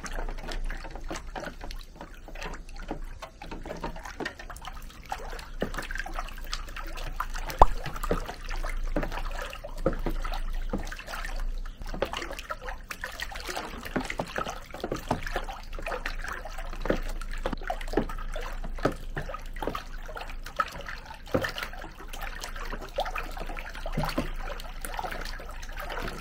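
Water sloshing and splashing in a plastic tub as a hand churns it and pushes small 3D-printed plastic boat hulls through it, in an irregular run of splashes with one sharper splash about seven and a half seconds in.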